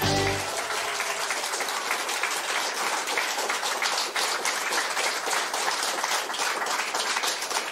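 Studio audience applauding: a dense, steady patter of many hands clapping. The last notes of music end about half a second in.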